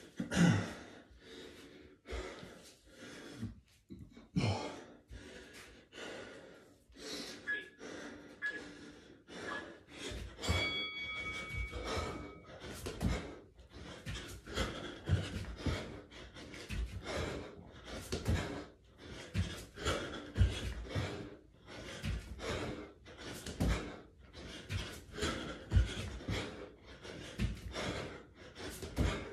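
A man breathing hard and panting while doing burpees and jogging on the spot, with repeated dull thuds of hands and feet on the floor.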